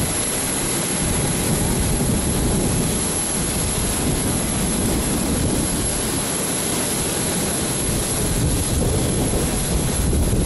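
Jet engines of a Solomon Airlines Airbus A320 running at low power while the airliner taxis on the runway: a steady rumble and hiss that holds at one level.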